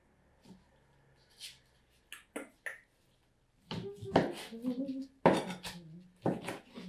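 Kitchen utensils clinking and knocking against dishes in a few short, sharp taps. From about four seconds in, a woman's voice hums without words over more clatter.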